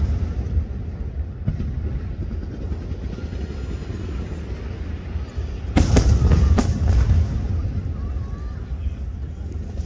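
Fireworks show: a steady low rumble of bursts, then a cluster of three sharp, loud bangs about six seconds in.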